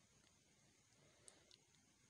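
Near silence: room tone, with a few faint ticks about a second and a half in.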